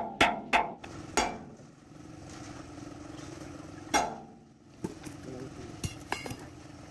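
Hammer blows on a steel punch against the concrete mixer drum's bearing: three sharp metallic strikes in the first second or so, one more about four seconds in, then a few light metal clicks, over a steady low hum.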